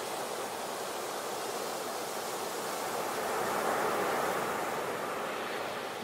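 Ocean surf: a steady wash of breaking waves that swells a little about halfway through and then eases off.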